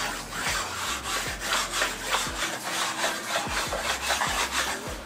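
Quick repeated scraping strokes, about three to four a second, of a small hand-held tool rubbed back and forth along an aluminium track set into a film-faced plywood tabletop.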